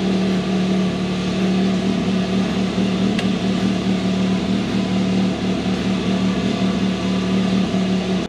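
Can-Am Maverick X3 XRS Turbo RR side-by-side running at idle, a steady even hum.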